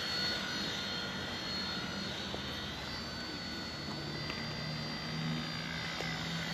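Eachine E129 mini RC helicopter's motors whining steadily in flight, the pitch wavering slightly as it holds against the wind, with wind noise underneath. A deeper hum joins a little past halfway.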